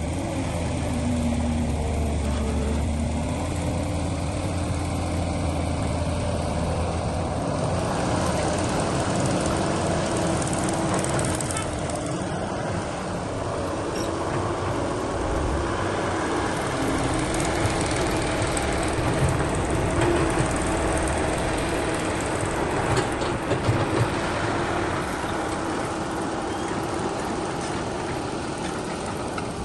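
Heavy diesel machinery running steadily, its engine note shifting in pitch as the load changes.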